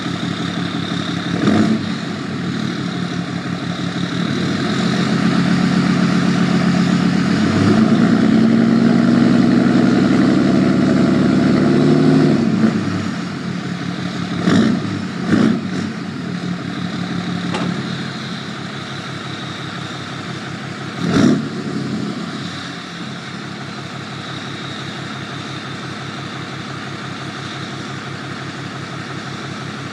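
Cummins 6.7-litre turbo-diesel with a 4-inch turbo-back exhaust and no muffler, idling with a high, steady turbo whistle, set up by a Smarty tuner's VGT level 2 setting. It is revved and held up for several seconds, then dropped back to idle, with a few short throttle blips after that.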